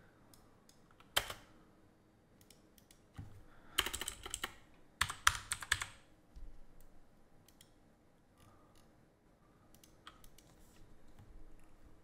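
Computer keyboard typing in short bursts, busiest from about four to six seconds in, with scattered single key clicks before and after.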